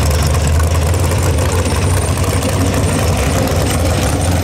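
Hot rod pulling tractor engine running at a steady speed, a loud, even low engine note with no revving.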